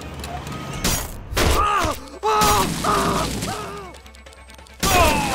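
Cartoon sound effects: a crash about a second in, then a string of short pitched sounds that bend up and down, and another crash with a falling tone near the end.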